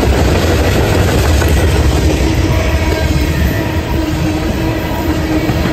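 Freight train's tank cars rolling past close by: a steady, loud rumble of steel wheels on rail. A faint steady tone comes in about halfway through.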